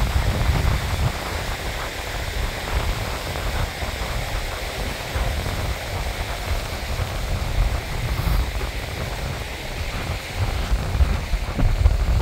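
Wind buffeting the microphone in uneven gusts, over a steady rushing hiss.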